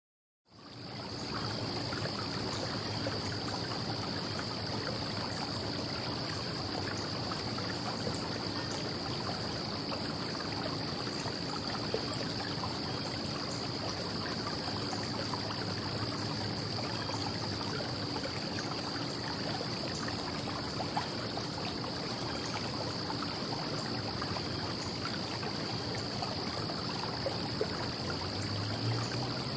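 Early-morning outdoor ambience of distant traffic: a steady, even wash of far-off road noise that fades in at the start, with a steady high-pitched hum over it. Near the end there is a faint low rise, as of one vehicle passing.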